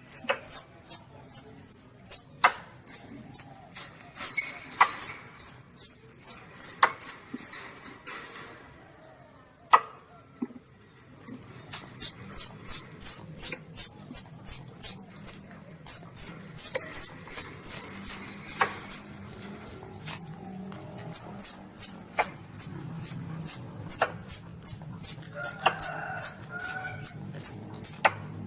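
Asian palm civet kitten calling: a rapid run of short, high-pitched squeaks, each falling in pitch, about three a second, broken by a pause of a few seconds about a third of the way in.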